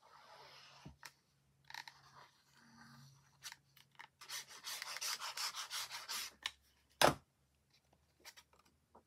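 Paper and card rubbing and scraping while glue is run along a card panel from a squeeze bottle's nozzle, with a longer stretch of dense scraping near the middle. One sharp knock about seven seconds in.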